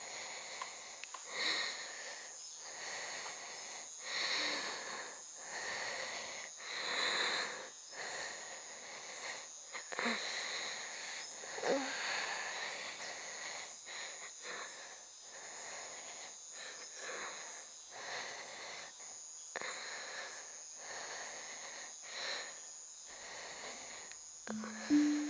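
A woman breathing heavily in pain, with rasping breaths and gasps every second or two. Insects chirr steadily behind, with a regular high chirp about once a second.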